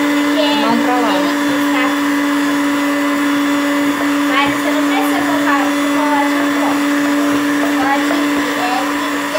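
Electric hand mixer running steadily, its beaters whipping chantilly (whipped-cream powder beaten with cold milk) in a bowl, with a constant motor hum.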